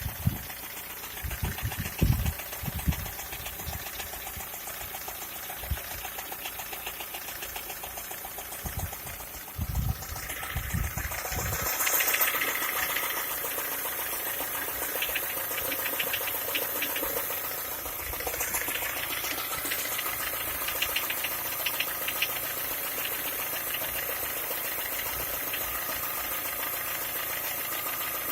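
Skoda Octavia A5 1.6 MPI four-cylinder petrol engine idling with a fast, even knock or tick of unknown cause. A few low thumps come in the first ten seconds or so, and about twelve seconds in the engine sound gets louder and then holds steady.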